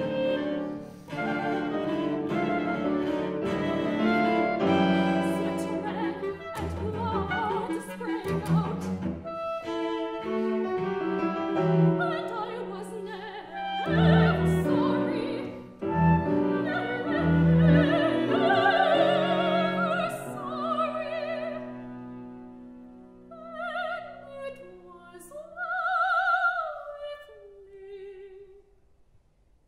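Soprano singing a classical art song with clarinet, cello and piano. About twenty seconds in the ensemble thins out, leaving the soprano's long, wavering vibrato notes over a soft accompaniment, growing quieter near the end.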